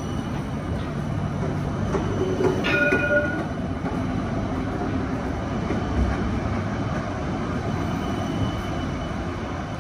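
Light rail tram running past close by on its rails, a steady rumble and hiss of wheels and motors. A brief ringing tone sounds about three seconds in.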